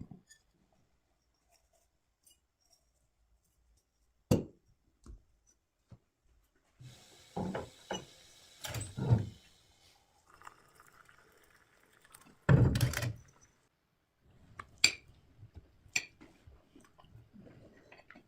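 Kitchen clatter of dishes and utensils: a series of separate clinks, knocks and set-down thumps, the loudest a heavy thump about two-thirds of the way through.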